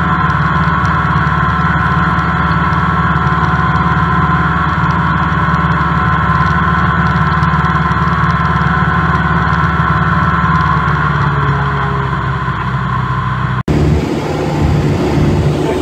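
Steady drone of a Cessna light aircraft's engine and propeller inside the cabin in cruise. Near the end it briefly drops out and comes back rougher and lower.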